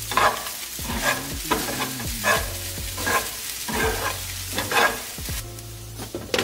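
Metal spoon stirring and scraping sabudana khichdi in a frying pan, in repeated strokes about one every second, over a light frying sizzle. A glass pan lid is set down with a click at the very end.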